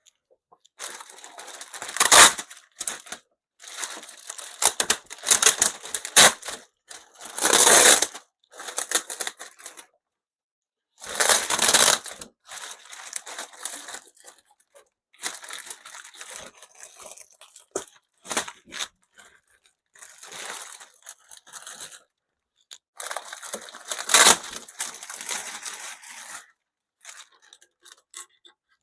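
Plastic packaging bag rustling and crinkling as it is pulled off, in irregular bursts with short pauses; the loudest crackles come about two, eight, twelve and twenty-four seconds in.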